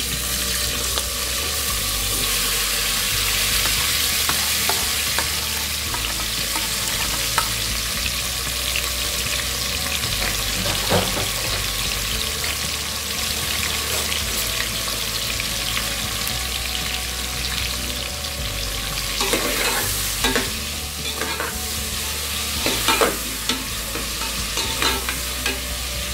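Hot oil sizzling steadily in an aluminium pressure cooker as chopped ginger, garlic, tomatoes and onions fry in it, with occasional sharp knocks and clatters in the pot, mostly in the second half.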